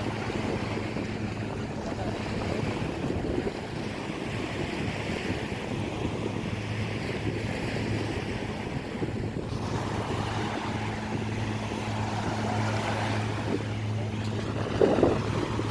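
A boat engine running with a steady low hum, under the rush of water and wind buffeting the microphone. A brief louder knock comes near the end.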